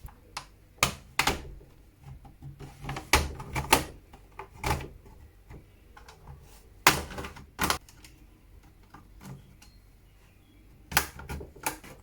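Plastic snap-clips of an ASUS X540L laptop's case clicking loose as a plastic pick pries the shell open: a series of sharp, irregularly spaced clicks and snaps.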